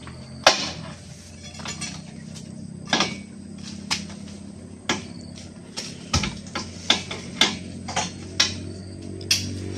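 Oil palm fruit bunches and a pole knocking against a pickup's loaded metal cargo cage as the bunches are thrown up and pushed into place: about a dozen sharp knocks and thuds at irregular intervals, the loudest about half a second in, over a faint steady low hum.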